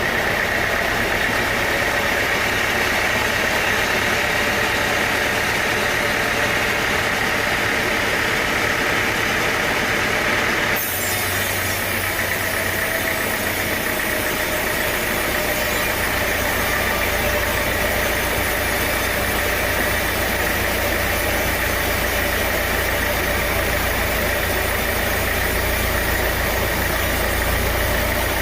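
Sawmill machinery, an engine-driven saw, running steadily with a constant mechanical drone. The sound shifts abruptly about eleven seconds in.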